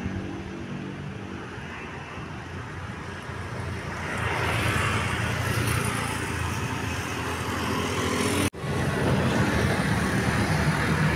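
A bus engine running, getting louder about four seconds in, with a split-second dropout shortly before the end.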